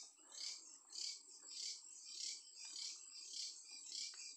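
Night-time insect chorus, high-pitched and pulsing at a little under two swells a second, with a faint rustle underneath.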